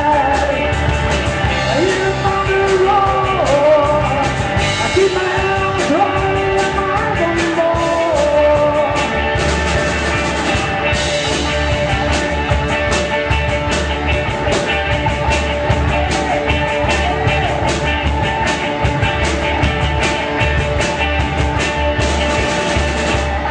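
Rock music from a full band, with drums and bass under a gliding melodic lead line through the first eight seconds or so.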